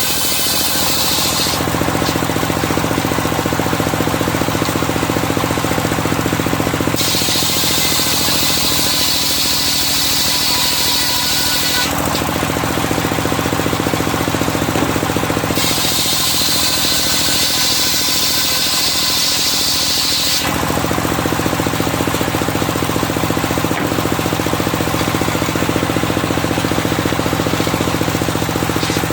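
Circular sawmill blade cutting medang logs, with a bright, hissing whine during each cut. Between cuts the machine runs with a steady, lower drone. Cuts of about five seconds come a few seconds apart, with a longer running stretch in the second half.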